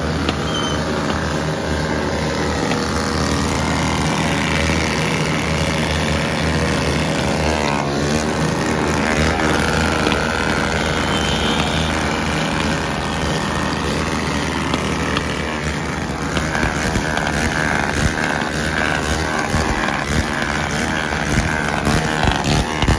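Motor vehicle engines running without a break, traffic noise with motorcycles likely among it.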